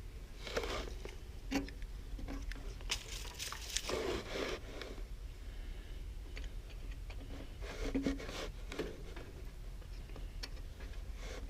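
Faint, scattered clicks, scrapes and rustles of tools and meter leads being handled while a clamp meter is set up on the unit's wiring.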